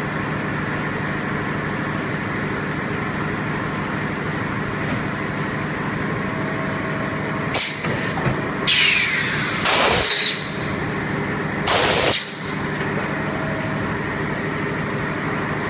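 HDPE bottle extrusion blow-molding machine running with a steady hum. About halfway through, four loud bursts of air hiss come over some five seconds, two of them with a falling whistle, as the machine cycles.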